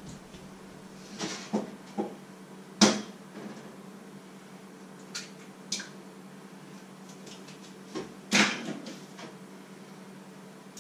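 Kitchen handling noises: scattered knocks and clatters of things being picked up and set down, the loudest about three seconds in and again about eight seconds in, over a steady low hum.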